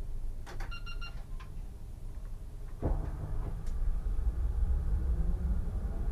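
Solaris Tramino S105p low-floor tram starting off from a stop. A short electronic beep sounds about half a second in. About three seconds in comes a sudden knock, then the tram's low running rumble, with a faint rising motor whine as it gathers speed.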